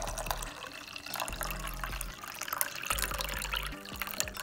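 Hot tea pouring from a plastic teapot into a ceramic mug, a steady stream of liquid filling the cup.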